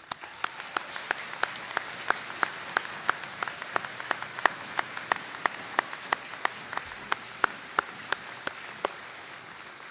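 A large audience applauding, with one person's claps close to the microphone standing out in a steady beat of about three a second; the near claps stop about a second before the end and the applause tapers off.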